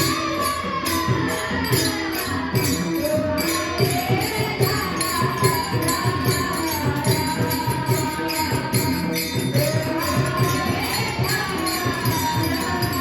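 Marathi devotional kirtan music: a singer's voice carries a gliding melody with long held notes over a steady drone, while jingling metal hand cymbals keep a quick even beat throughout.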